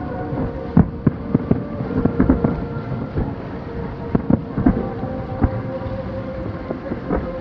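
Distant aerial fireworks shells bursting in an irregular barrage of booms, about a dozen in a few seconds, over a steady droning tone.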